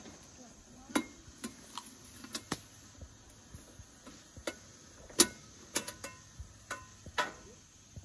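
Scattered sharp clicks and light metallic clinks at irregular intervals, the sharpest about five seconds in: camp cookware, a pot and its lid on a camp stove, being handled.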